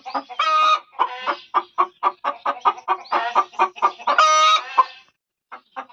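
Domestic hen cackling after laying an egg: a quick run of short clucks, about five a second, broken by two long drawn-out calls, one about half a second in and one about four seconds in, then stopping shortly before the end.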